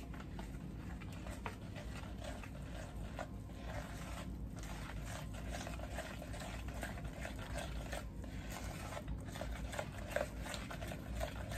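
A utensil stirring powdered sugar into melted brown butter in a bowl, making soft, irregular scraping and light clicks against the bowl.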